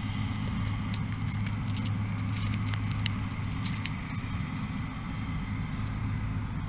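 Soybean pods crackling and clicking as they are rubbed and split open between the fingers to shell out the beans, which are still soft and rubbery after rain rather than dry. Behind it, the steady low hum of Case IH combines running in the field.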